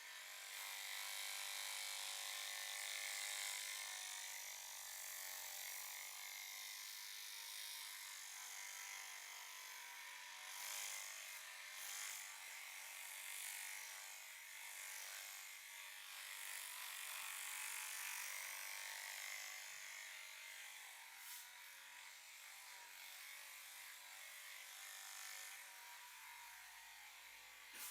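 Hands rubbing and kneading a scalp through the hair: a steady high rustling, with a few brief louder scrapes and a sharp click near the end.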